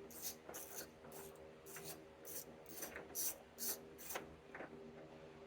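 A hand tool backing a 5 mm Allen bolt out of the door's handle mount: about ten short, evenly spaced strokes, two to three a second, that stop about four seconds in.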